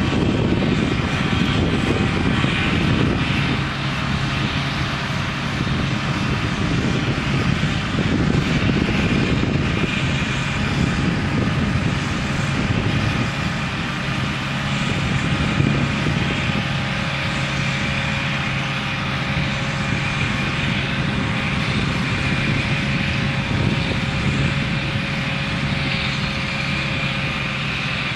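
Komatsu D61PXi crawler bulldozer's diesel engine running steadily with an even, unchanging pitch, along with a thin high whine.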